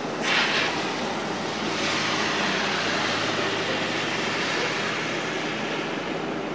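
Steady rain falling on a wet porch floor and lawn. A short louder hiss comes just after the start, and the hiss swells louder for a few seconds from about two seconds in before easing back.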